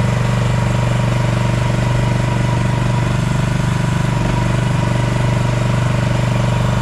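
A 2024 MIVA VA13E mini excavator's small engine running steadily at idle, with a thin steady whine above the engine note.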